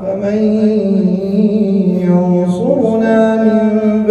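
A man's voice chanting Quran recitation, drawing out a long melodic note, with a turn in pitch about two and a half seconds in.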